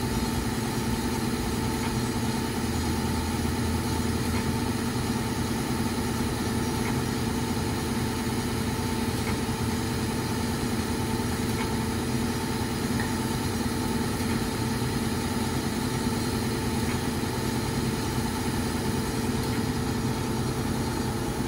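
Timesavers 37-inch wet belt grinder with its 20 HP motor running steadily, a constant even hum with a few held tones.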